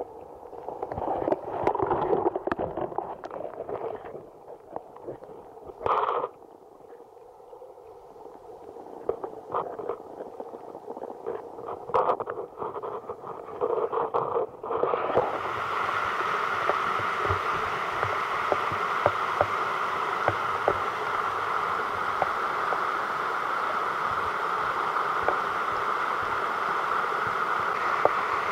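Muffled gurgling and bubbling of stream water heard underwater, with scattered knocks, then from about halfway an abrupt change to the steady rush of the flowing stream heard in open air.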